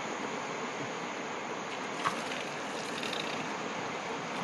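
Steady rush of river water flowing, with a single short click about two seconds in.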